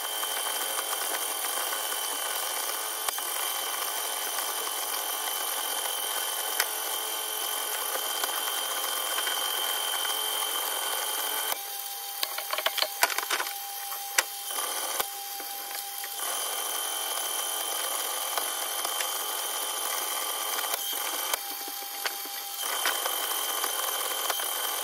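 Electric cable-stripping machine running steadily as single-core 185 mm aluminium-armoured cable is fed through its rollers and cutting blade. The noise drops for a few seconds about halfway, with several sharp knocks, then picks up again.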